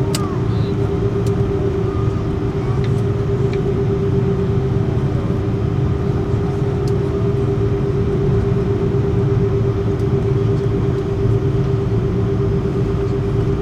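Steady engine hum of a moving vehicle: two unchanging tones over a low rumble, with a few faint clicks.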